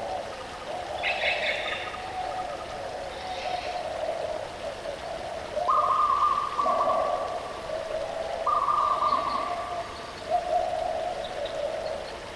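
Birds calling over the steady rush of a waterfall: long, low, drawn-out calls throughout, two higher held notes about midway, and a few short chirps near the start.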